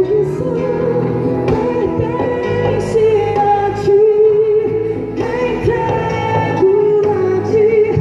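Christian worship band playing live, with a singer holding long, wavering notes over the band.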